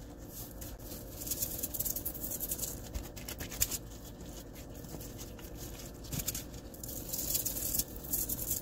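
Seasoning shaken from a cylindrical shaker canister onto raw chicken tenders on a foil-lined tray: granules pattering, with the canister rattling. It comes in two spells of quick rattling shakes, one starting about a second in and one near the end.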